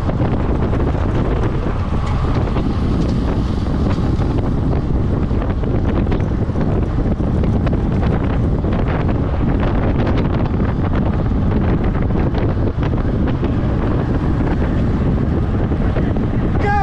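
Steady wind noise buffeting the microphone of a camera riding on a bicycle at speed, with faint clicks and knocks scattered through it.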